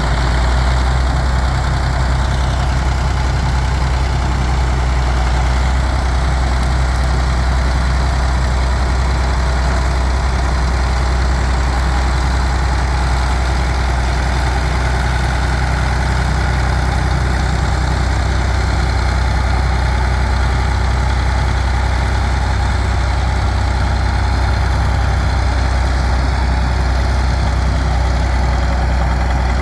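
Large diesel engine idling steadily, with a deep, even low rumble.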